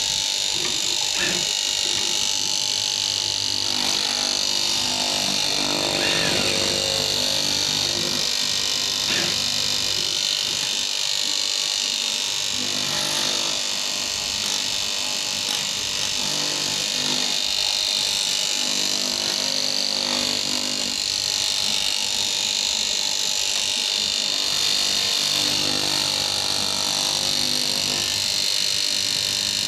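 Electric cloth-cutting machine running steadily, its motor giving a continuous high hiss while it cuts canvas, with indistinct voices in the background.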